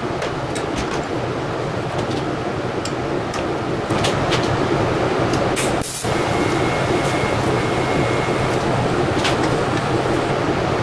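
TIG welding a small steel T-fitting onto a throttle pedal rod: a steady arc hum over a constant machine hum. The hum gets louder about four seconds in, drops out for a moment near the middle, and a thin steady whine runs for a couple of seconds after that.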